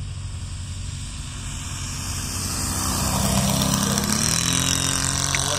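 The Saito 84 three-cylinder four-stroke radial engine of a large radio-controlled Hawker Sea Fury model, turning a 25x12 propeller, running at speed on a low pass. The engine note grows louder to a peak about three and a half seconds in, then drops in pitch as the plane goes by.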